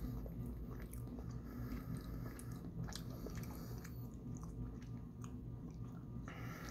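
A person chewing soft taro fudge, with small wet mouth clicks and smacks, then taking another bite near the end, over a low steady hum.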